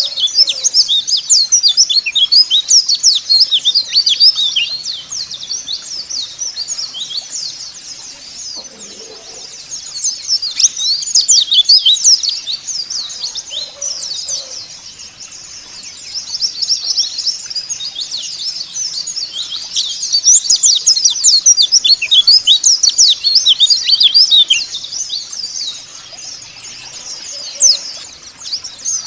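White-eye (pleci) song: rapid, high, twittering chatter of many quick sweeping notes, coming in loud bouts that ease off into softer stretches a few times.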